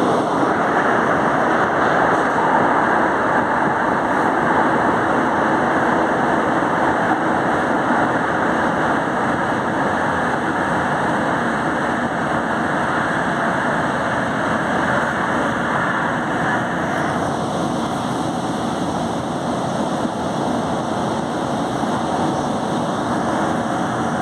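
São Paulo Metro train running past a station platform: a steady, loud rumble of wheels on rails and traction motors that eases somewhat after about 17 seconds.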